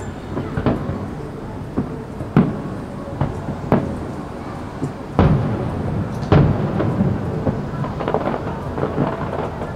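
Aerial fireworks shells bursting: a string of booms that echo, the loudest about five and six seconds in, followed near the end by a rapid crackle of many small bursts.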